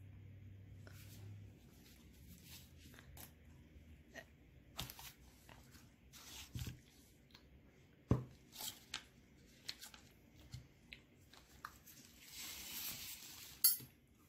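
Close mouth sounds of a man chewing and tasting a spoonful of soft food: scattered wet clicks and lip smacks, with a short breathy rush near the end.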